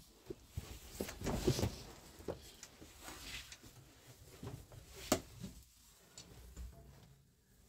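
Scattered light knocks, clicks and rustling from a person moving about a cluttered room, with one sharp click about five seconds in.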